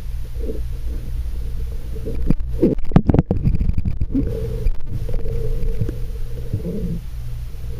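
Muffled sound heard through the water of a swimming pool: a steady low rumble with a few knocks and scrapes, loudest a little past the middle, as a vinyl pool liner is patched underwater.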